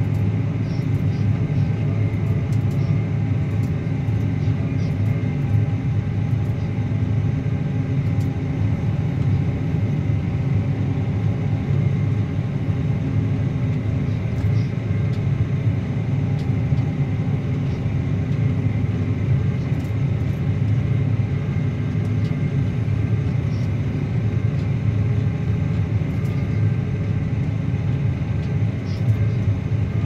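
Claas Axion 850 tractor's six-cylinder diesel engine running steadily under load while pulling a Kuhn Varimaster reversible plough through the soil: a constant low drone with a few faint ticks.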